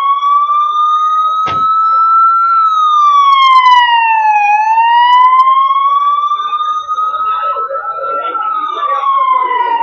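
Electronic emergency-vehicle siren in a slow wail. The pitch climbs for about four seconds, falls for about two, then climbs and falls again. A single sharp click sounds about a second and a half in, and faint voices grow near the end.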